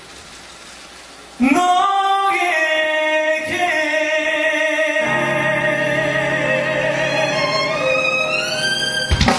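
Music with a singer: after a short quiet moment, the voice climbs through a few notes and then holds one long note with vibrato, sliding upward in pitch near the end.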